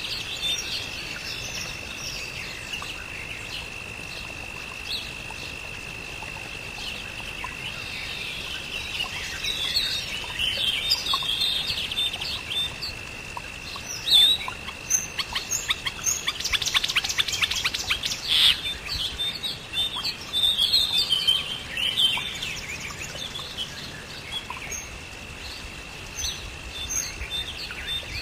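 Several wild birds chirping and calling over a steady, high-pitched insect drone. The bird calls crowd together in the middle, including a fast trill, then thin out again.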